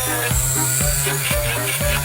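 Background music with a steady beat of about two strokes a second over a held bass note.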